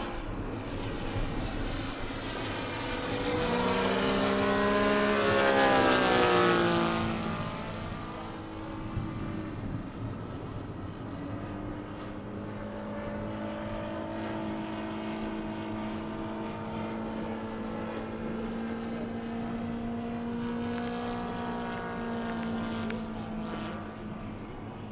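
Propeller engines of radio-controlled scale warbird models in flight. One plane passes close a few seconds in, growing louder and dropping in pitch as it goes by, then the engines drone more steadily overhead.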